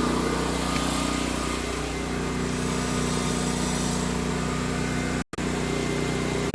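An engine idling, a steady even hum that cuts out for an instant about five seconds in.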